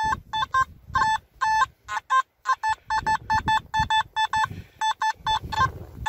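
Nokta Makro Simplex metal detector beeping over a buried target in short, rapid two-tone beeps, about three a second, as the coil is swept back and forth. The detectorist takes the target for another large lump of iron.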